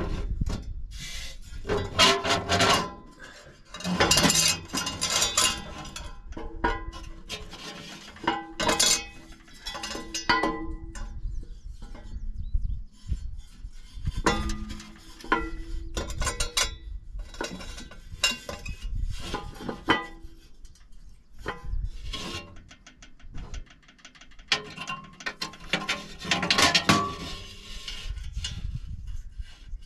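A steel engine cooling fan being handled onto a Caterpillar D3C bulldozer's water-pump pulley. Metal clanks, knocks and scrapes come at irregular intervals as the fan is jostled to line up its bolt holes, with some brief metallic ringing.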